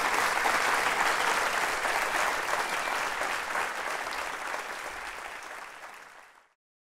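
Audience applauding, fading out over the last few seconds and ending in silence near the end.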